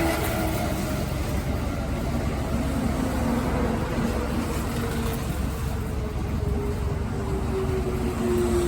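Kintetsu electric train running into the station over a low rumble, its motor whine falling slowly in pitch as it slows.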